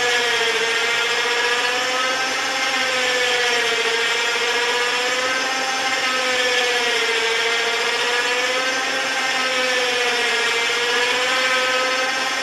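DC-powered motor running at full speed on about 18 volts, extending the US Tower MA40 telescoping mast, with lots of noise. Its whine rises and falls slowly in pitch every few seconds.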